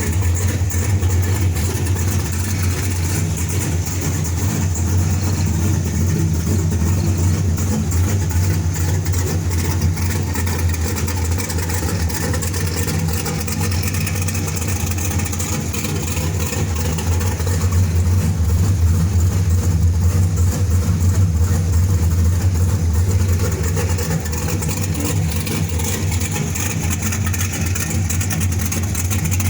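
Ford Mustang engine idling steadily after a cold start, a deep even hum, briefly a little louder past the middle.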